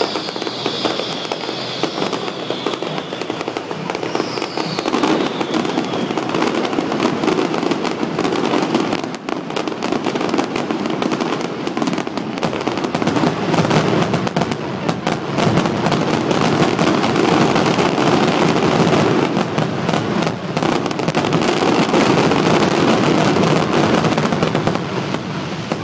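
Aerial fireworks barrage: dense, continuous bangs and crackling, a little louder in the second half, with high falling whistles in the first few seconds.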